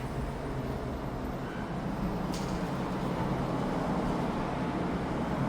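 Steady low background rumble, like distant traffic or an outdoor hum, with one faint click a little over two seconds in.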